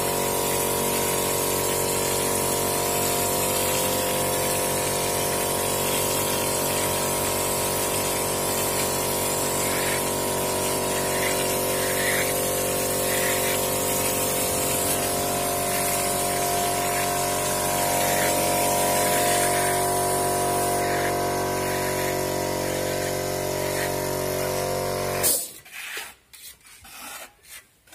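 Air-fed hopper spray gun blowing texture plaster onto a wall, a steady hiss over the hum of the compressor that feeds it. It cuts off suddenly near the end, leaving faint scraping of a steel trowel on the fresh plaster.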